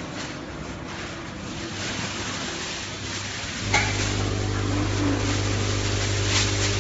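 A semi-automatic sugar packing machine starting its fill cycle: a click about halfway through, then a steady low electric hum as the feeder runs. Before that there is only a quieter machinery rumble.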